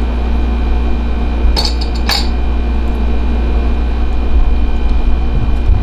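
A ladle clinking against a stainless steel soup pot and a bowl while soup is dished out, two or three sharp clinks about a second and a half in, over a steady low hum.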